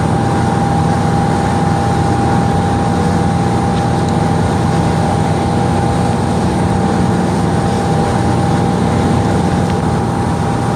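Motorboat engine running steadily at speed, with the rush of water from the churning wake: a constant drone with a steady high whine over it.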